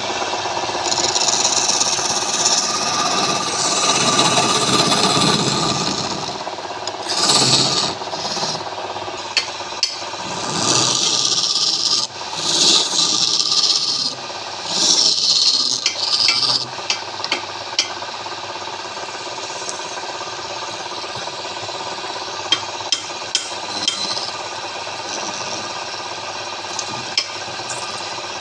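Wood lathe running with a steady hum while a tool scrapes against the spinning wood in repeated bursts, mostly in the first half, with scattered clicks later on.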